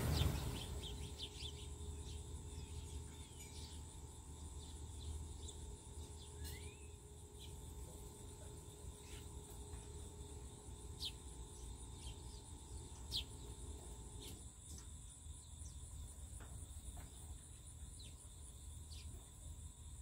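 A flock of small birds flushing off a feeder all at once, a brief rush of wingbeats at the start. Then a steady high insect trill with scattered short bird chirps.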